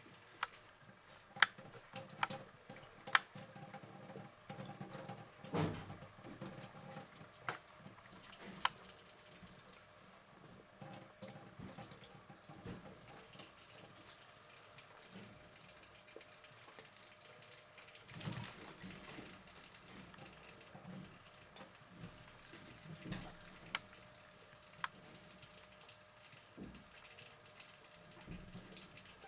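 Kitchen tap running a thin trickle and dripping into a sink, with a few sharp clicks scattered through and a brief louder splash of noise about two-thirds of the way in.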